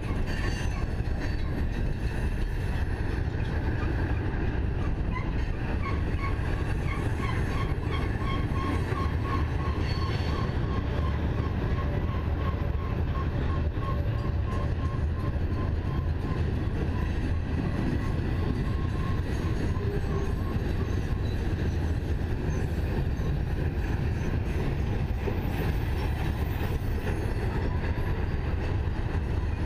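Freight train rolling past, its cars giving a steady low rumble on the rails. From about six seconds in to about seventeen, a high wheel squeal pulses several times a second over the rumble.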